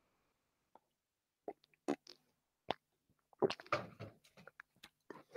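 A person taking a sip of water close to the microphone: after about a second and a half of silence, a string of small clicks and swallowing sounds, busiest around the middle.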